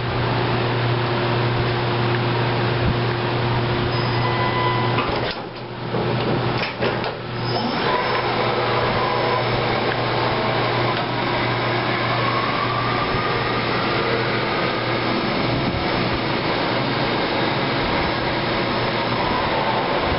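Daewoo ACE-V50 vertical machining center running, a steady whirring hum from its spindle and axis drives. The hum dips briefly about five and seven seconds in.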